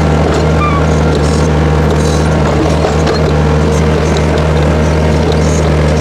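Case 1845C skid steer's diesel engine running at a steady speed, working the hydraulics of a backhoe attachment as the bucket digs and lifts out of the dirt.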